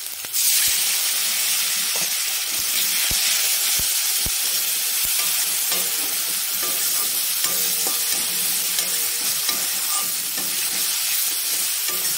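Water poured into onion and spice masala frying in hot oil in a kadai sets off a loud sizzle about half a second in. The sizzling goes on steadily while a metal spatula stirs and scrapes the masala, with a few light knocks.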